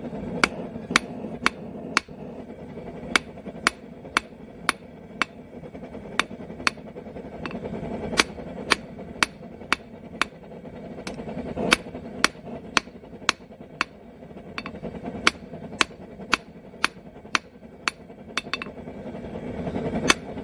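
A hand hammer strikes a hot bar of 3/8-inch square steel on an anvil, sounding as a steady rhythm of sharp metallic blows about two a second. The blacksmith is drawing out a taper on the bar.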